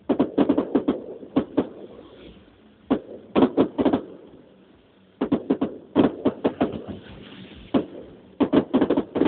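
Fireworks going off in rapid volleys of sharp bangs, several quick reports per volley, the volleys coming every second or two with quieter gaps between.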